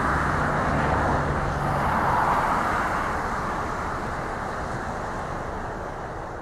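Jet engines of a taxiing Boeing 737-800 (CFM56 turbofans) at taxi power, a steady roar that slowly grows fainter.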